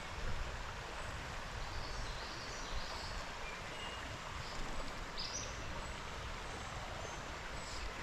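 Steady rush of flowing creek water, with a few faint, short high bird chirps.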